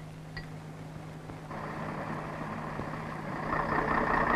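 Scania-Vabis LA82 army truck's direct-injection diesel engine running, growing louder about a second and a half in and again near the end.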